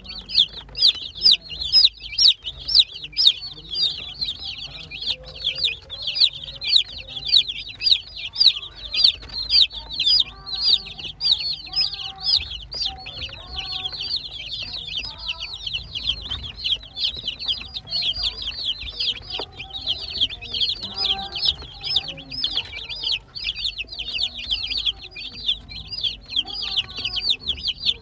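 A flock of baby chicks peeping nonstop, dozens of short, high, falling calls overlapping several times a second, with some softer, lower calls beneath.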